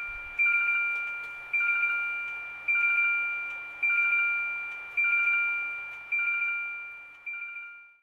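Seiko Musica QM715R alarm clock sounding its electronic beep alarm, the last choice after its melodies. Each burst is a few quick two-tone beeps that ring away, repeated about once a second, and it cuts off near the end.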